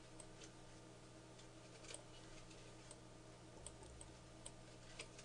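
Near silence: faint, scattered computer mouse button clicks, irregularly spaced, over a low steady electrical hum.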